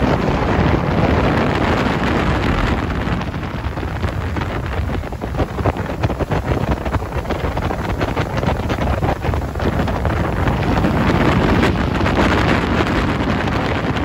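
Wind buffeting the microphone on a speedboat under way, over the steady rush of the motor and hull on the water.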